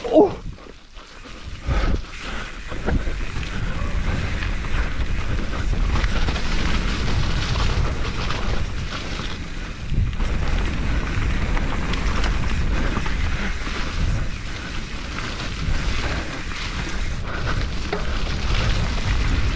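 Wind buffeting the action-camera microphone over the rattle and clatter of a YT Capra full-suspension mountain bike riding down a dirt trail, from about two seconds in.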